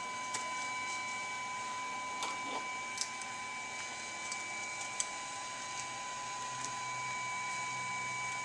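Steady fan hiss with an even high whine from running electronics-bench equipment, with a few light clicks and rustles as the respirator mask and tools are handled.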